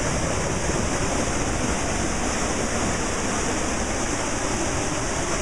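Floodwater rushing steadily over a submerged bridge in a storm-swollen creek, a continuous, even noise of fast-moving water.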